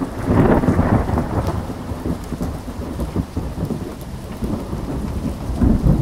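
Low rumbling, crackling noise like a thunderstorm with rain, swelling louder about half a second in and again near the end.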